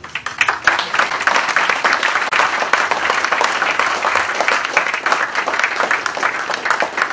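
Audience applause: many hands clapping in a dense, steady patter that swells within the first second.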